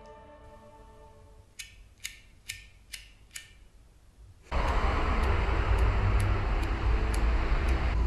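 Music fades out, then sharp, evenly spaced ticks come about two a second. About four and a half seconds in, loud steady street traffic noise with a deep rumble cuts in abruptly, and the ticking carries on faintly beneath it.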